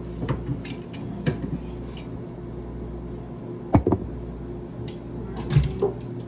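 Rummaging through a kitchen cupboard: scattered clicks and knocks of containers being moved, with a pair of sharp knocks almost four seconds in and a few more near the end, over a steady low hum.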